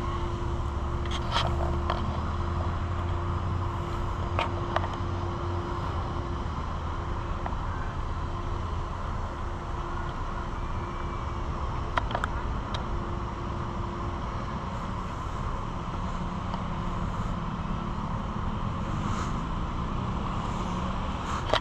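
Steady low engine rumble with a thin steady hum over it that fades out about two-thirds of the way through, and a few sharp clicks.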